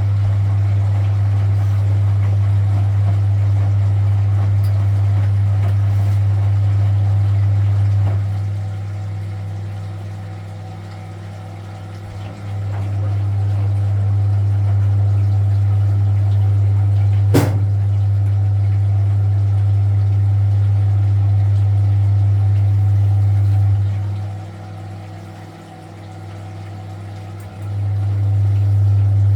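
Frigidaire Super Deluxe Automatic 50 front-loading washing machine's induction motor on its final spin: a steady low hum that cuts out for a few seconds about eight seconds in and again near the end, then comes back. One sharp click comes about halfway through.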